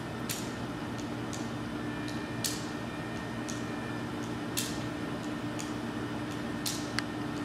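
Sharp clicks, the loudest about every two seconds with fainter ticks between them, over a steady low hum.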